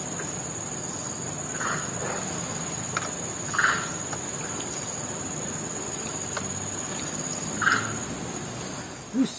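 Insects droning steadily at a high pitch, the drone cutting out about a second before the end. Three short calls stand out over it, about two, four and eight seconds in.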